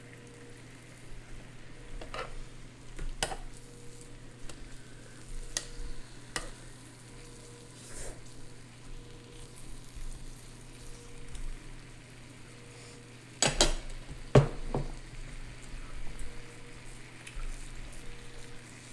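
Food sizzling on an electric hot pot and grill combo, a steady hiss with a low hum under it. Utensils click against the pot now and then, with the loudest pair of knocks about two-thirds of the way through.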